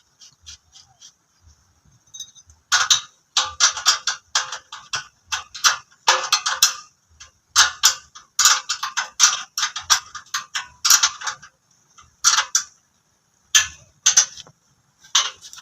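Rapid clicking in repeated bursts of about a second each, from work on a small well-drilling rig as it is set up. A faint steady high whine sits behind.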